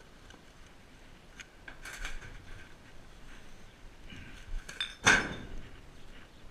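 Hard objects clinking and clattering in a few separate knocks. The loudest comes about five seconds in and rings briefly.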